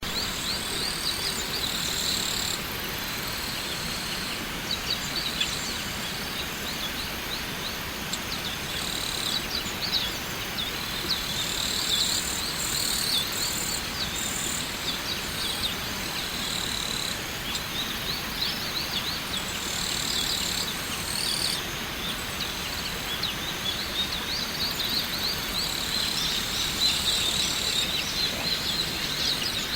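A waterfall rushing steadily, with birds chirping over it in many quick, high notes and a very high insect buzz coming and going.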